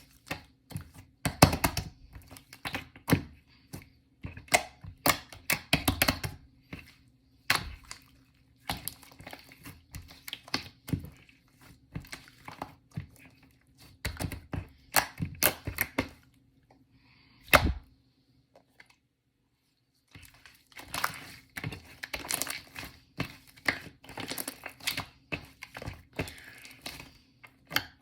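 Shaving-foam marbled slime being squeezed, poked and stretched by hand, giving irregular sharp clicks and pops of trapped air between squishy noises. It drops out for about two seconds a little past the middle.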